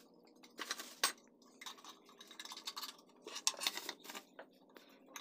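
Metal hand tools, wrenches and sockets, clinking and clattering as they are picked up and handled, in a scatter of light clicks.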